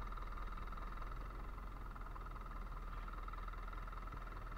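Steady drone of a fishing boat's engine running at sea, with a constant hiss over it.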